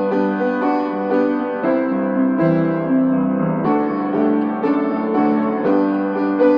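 Slow piano music: sustained chords with a melody moving note by note.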